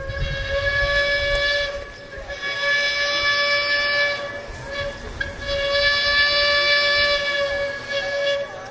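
Steam whistle of the saddle-tank locomotive Flagg Coal 75, blown as two long blasts, a short one and a final long one: the long-long-short-long grade-crossing signal.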